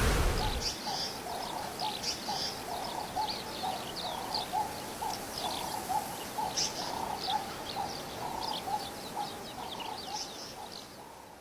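Birds calling: many short, high chirps over a quick, steady run of lower repeated notes, fading out near the end.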